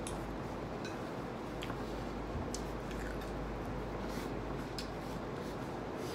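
Small crisp crackles and clicks of plastic-gloved fingers tearing apart crispy fried chicken, scattered every second or so over a steady background hiss.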